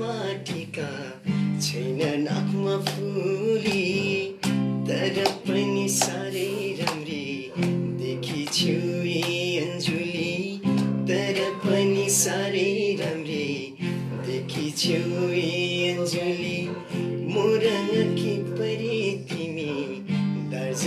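A man singing a Nepali song while strumming a cutaway acoustic guitar in a steady rhythm.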